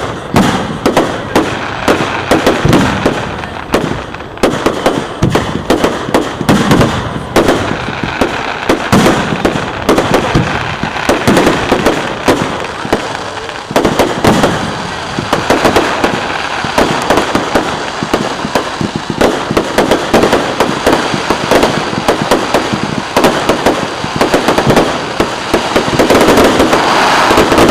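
Fireworks display going off: a rapid, continuous string of bangs and crackles.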